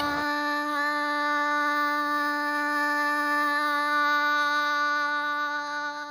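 Background music holding one long sustained note, with a slight fade near the end.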